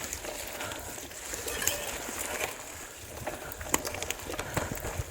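Bicycle riding along a dirt trail: a steady rustle of tyres with scattered clicks and rattles.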